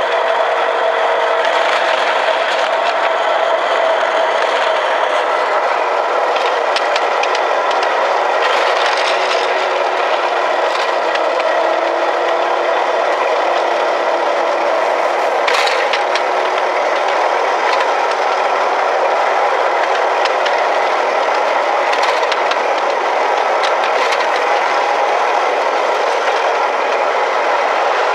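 Ride-on miniature railway train running along its narrow track, heard from on board: a steady rattling, scraping rolling noise of the wheels on the rails, with now and then a sharper click.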